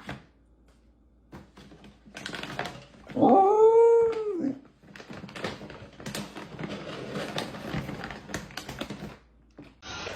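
A dog giving one drawn-out vocal call about three seconds in, rising and then falling in pitch. Rustling and clicking noises run around it.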